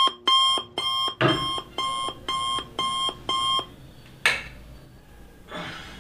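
An alarm beeping in a steady pattern of about two beeps a second. The beeps get quieter a little past a second in and stop a little before four seconds. A sharp click comes soon after, and bedding rustles near the end.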